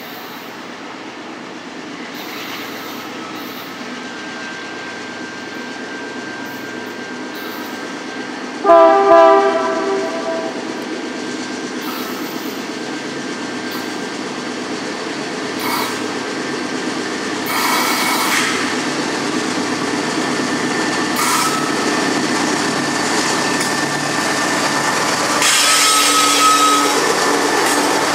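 Union Pacific GE AC4400CW diesel locomotives hauling a loaded coal train approach and pass close by, the engine and wheel noise growing steadily louder. One horn blast, a chord of several tones lasting about two seconds, sounds about nine seconds in and is the loudest moment. A thin high steady squeal, typical of wheel flanges on a curve, runs through much of it.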